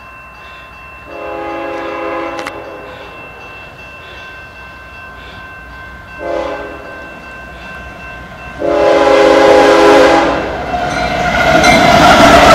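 Canadian Pacific GE diesel locomotive horn sounding three blasts for the crossing (long, short, long), over a steadily ringing grade-crossing bell. About eleven seconds in the lead locomotives arrive at speed, their engine and wheel-on-rail noise swelling to the loudest sound near the end.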